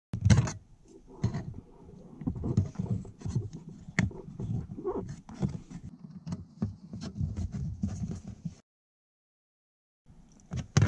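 Hand screwdriver driving a self-tapping screw through a plastic lower dash panel to fix a brake controller's mounting bracket: irregular clicks, knocks and scraping, with a sharp knock just after the start and another about four seconds in. The sound cuts off suddenly after about eight and a half seconds and picks up again near the end.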